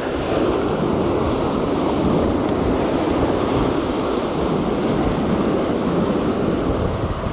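Ocean surf breaking and washing around shoreline rocks, a steady rushing wash of water.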